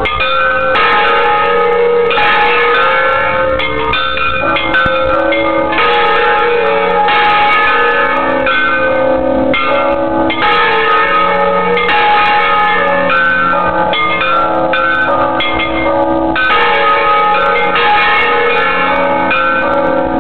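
Church bells of a Mexican bell tower ringing a festive repique at close range: several bells of different pitches sound in quick, overlapping strokes without a break, loud, with a large bronze bell swinging on its yoke close by.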